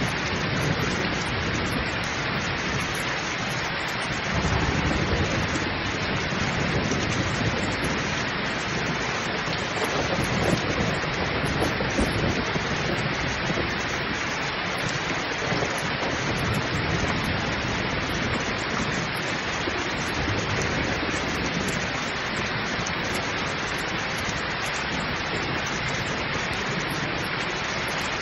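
Heavy rain pouring steadily in a dense hiss, with low rolling thunder swelling up a few times.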